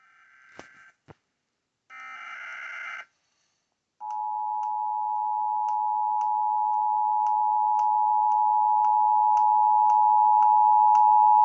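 Emergency Alert System header: two short bursts of warbling digital data chirps, then the steady two-tone EAS attention signal sounding for about eight seconds, announcing a new severe weather warning. Faint regular ticks sound about three times a second behind the tone.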